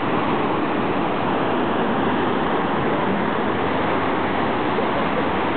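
Ocean surf breaking on a beach, a steady wash of waves.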